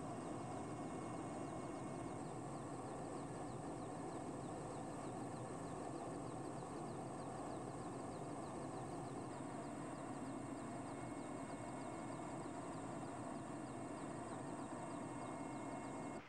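Helicopter in flight: a steady, unchanging drone of engine and rotor noise that stops abruptly at the very end.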